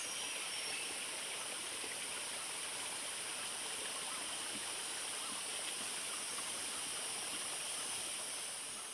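Steady rushing of a stream, with a strong high hiss on top, fading away near the end.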